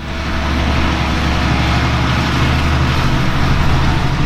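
A steady machine-like running sound: a loud low drone with a hiss over it, holding evenly without change.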